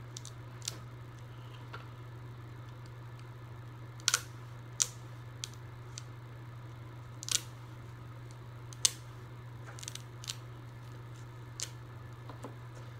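Knife slitting the plastic wrap on a hardcover book and the wrap being pulled away: scattered sharp crinkles and clicks, the loudest about four, seven and nine seconds in, over a steady low hum.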